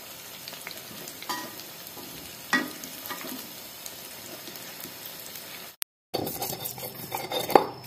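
Tempeh frying in hot oil in a wok: a steady sizzle with a few taps and scrapes of a spatula against the pan. About six seconds in it cuts abruptly to a stone pestle scraping and grinding chilies and shallots in a stone mortar (cobek) for sambal.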